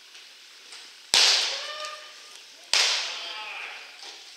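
Two loud pops of baseballs smacking into catcher's mitts, about a second and a half apart, each echoing briefly.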